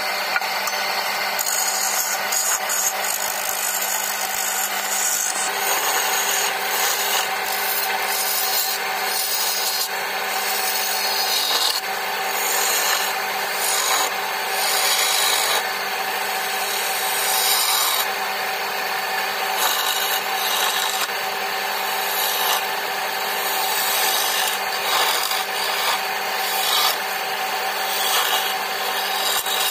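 Wood lathe running with a steady hum while a hand-held turning chisel scrapes and cuts the spinning wooden cup blank. The cutting noise rises and falls every second or two as the tool is worked along the wood.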